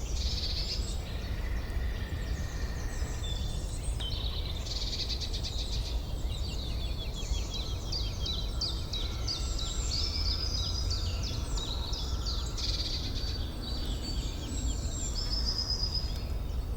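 Recorded forest ambience: several songbirds singing at once, with overlapping chirps, trills and whistled phrases, over a steady low rumble.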